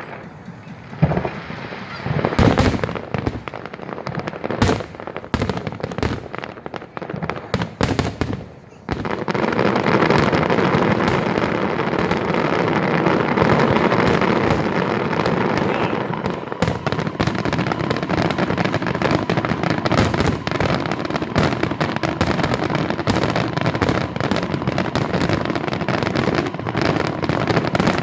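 Fireworks display: separate bangs and crackles for the first several seconds, then from about nine seconds in a dense, continuous barrage of crackling and bursts.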